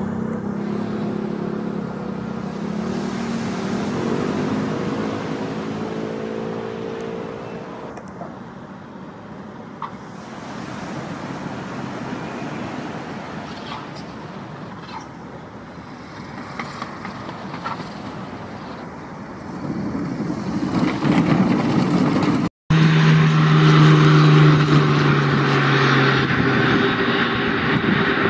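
Single-engine light propeller plane landing, its engine note rising over the first few seconds and then easing off. After a cut about 23 s in comes a louder Beechcraft King Air twin turboprop making a gear-up landing, with steady engine tones over a broad rushing noise.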